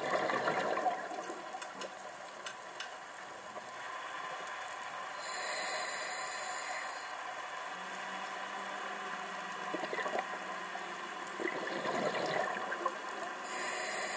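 Scuba diver breathing through a regulator underwater: the exhale comes out as a gurgling burst of bubbles at the start and again about two thirds through. Between them and near the end there is a high hiss of air on the inhale.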